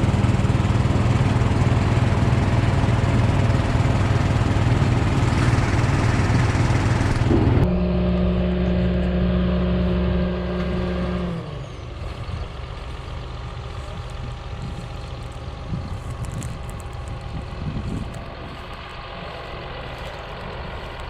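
Tractor engine running steadily under load. About eight seconds in the sound changes abruptly to a steadier, lower engine note, which dips and drops away about eleven seconds in. A quieter background rumble with a few light knocks follows.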